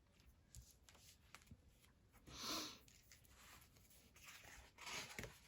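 Near silence with faint handling of paper and sticker sheets: small clicks and a soft rustle about halfway through.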